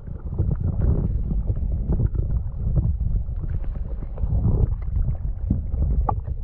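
Kayak on the water: a low rumble of wind on the microphone and water against the hull, with scattered small knocks and clicks throughout.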